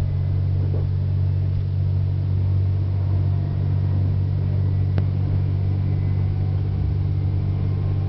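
Steady low drone of a KTR001-series diesel railcar running along the line, heard inside the driver's cab, with a single sharp click about five seconds in.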